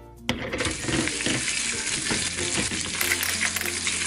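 Sizzling frying sound that starts with a click a fraction of a second in and then runs steadily, as of food cooking in a pan, over faint background music.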